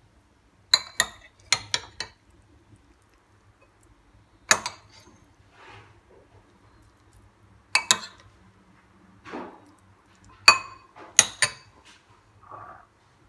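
Dishes and cutlery clinking in a kitchen: a series of sharp clinks and knocks that ring briefly, coming in small clusters.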